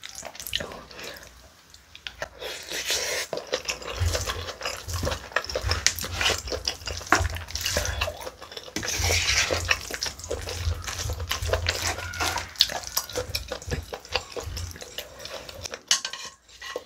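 Wooden spoon and chopsticks stirring and scooping saucy spicy octopus rice in a plastic takeout bowl, with many small clicks and scrapes of the utensils against the bowl.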